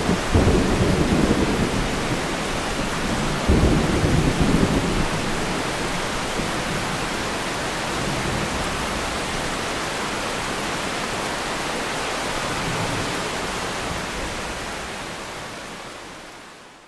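Thunderstorm: steady rain with two rumbles of thunder, one just after the start and another about three and a half seconds in, then the rain fades out at the end.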